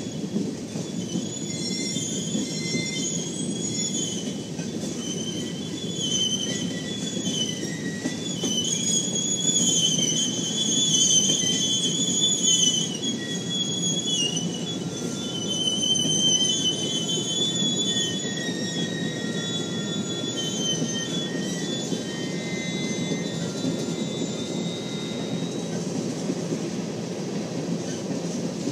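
Passenger cars of the Ringling Bros. and Barnum & Bailey circus train rolling past, their wheels making a steady low rumble on the rails. Over it, a high-pitched, wavering wheel squeal comes and goes, loudest around the middle.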